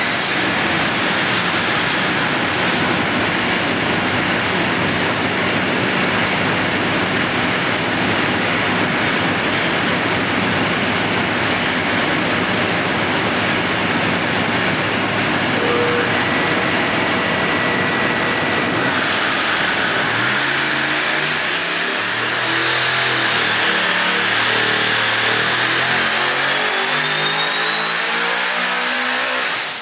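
Supercharged 572 cubic inch big-block V8 (gear-driven ProCharger F3-131 blowing through a carburettor) running loud and steady on an engine dyno, with the cell's fans running. From about two-thirds of the way in it is on a full-power pull, its pitch climbing steadily with a rising supercharger whine, until it cuts off right at the end.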